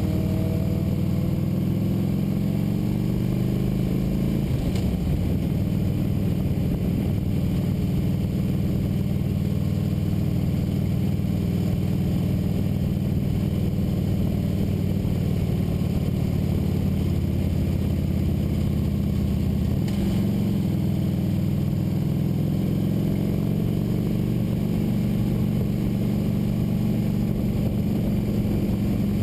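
Motorcycle engine running under way, its pitch rising near the start and again near the end as it speeds up, with two brief clicks along the way.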